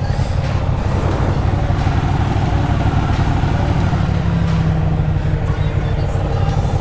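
Motorcycle engine running steadily while riding, a continuous low drone with no break.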